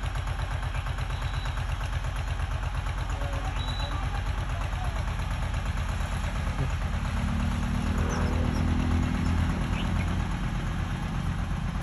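Eicher tractor's diesel engine running hard under load as it strains to drag a stuck, soil-laden trolley. The drone grows deeper and stronger from about seven seconds in.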